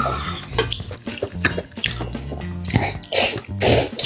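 Noodles being slurped loudly from the pot, beginning about three seconds in, with a few light clicks before it. Background music with a steady beat plays throughout.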